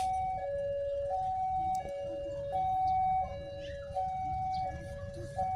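Electronic two-tone railway level-crossing alarm, alternating steadily between a higher and a lower tone, each held for just under a second, warning of an approaching train. A low rumble runs underneath.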